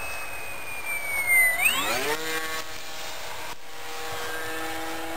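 Electric motor and propeller of a depron RC Extra 300 model plane whining in flight. The pitch slides slowly down, then about one and a half seconds in the throttle is opened and the pitch climbs quickly, settling into a steady drone.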